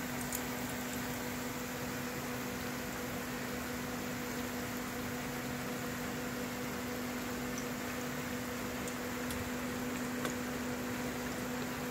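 Potato pieces deep-frying in a pan of hot oil, a steady sizzling hiss with a few faint crackles, over a steady low hum.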